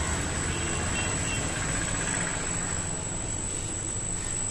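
Steady background hum and hiss with a constant high-pitched whine; no distinct event.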